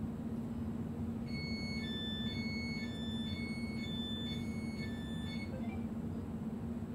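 Electronic two-tone signal inside a Berlin S-Bahn class 483/484 train, a higher and a lower beep alternating, each about half a second, for about four seconds starting a second in. Under it the train's steady electrical hum runs on.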